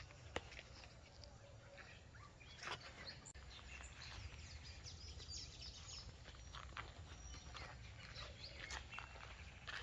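Faint outdoor ambience: a low steady rumble with scattered short high chirps and ticks, and a couple of brief soft knocks near the start and about three seconds in.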